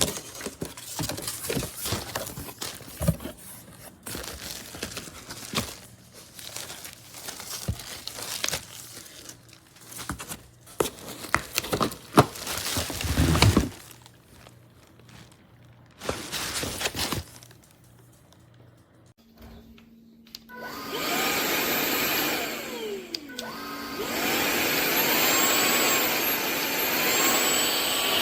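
Handling clicks and knocks, then a cordless stick vacuum is switched on about two-thirds of the way through and runs steadily, its motor whine wavering in pitch.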